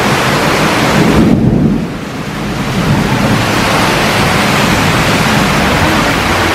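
Very heavy rain pouring down, with thunder rumbling low beneath it. About a second and a half in, the hiss of the rain dims briefly, then comes back at full strength.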